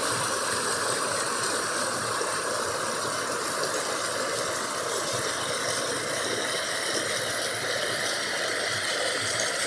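A river's running water, a steady rushing noise that holds even throughout.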